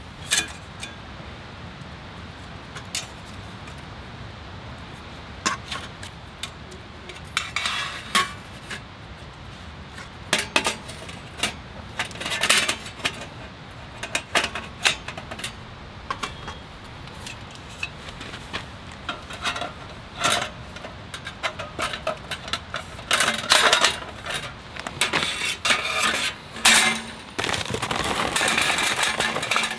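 Stainless-steel box grill being unfolded and set up: sheet-metal panels clinking and clanking in scattered knocks. Near the end, charcoal pours from a bag and rattles into the steel firebox.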